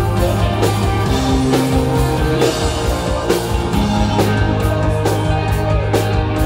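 Rock band playing live: electric guitars, bass guitar and keyboard over a drum kit, with steady, regular drum and cymbal hits and sustained chords.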